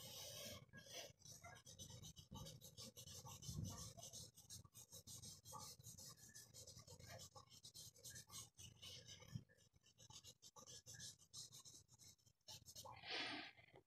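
Faint scratching and rubbing of a charcoal stick on drawing paper, in many quick short strokes, as shading is laid in.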